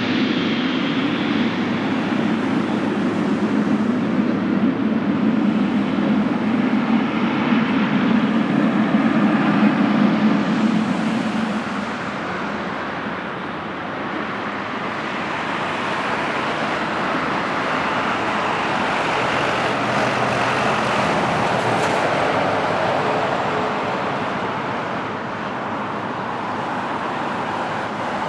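Jet airliner engine noise during a landing at a large airport: a heavy low rumble that fades about twelve seconds in, then a broader, hissier swell of engine noise that eases near the end.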